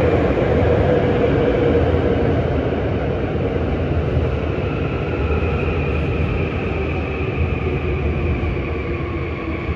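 Korail-run Seoul Subway Line 3 train pulling into an underground station platform and slowing. A steady low rumble of wheels on rail fades slowly, with faint motor whine tones that drift slightly lower as it brakes.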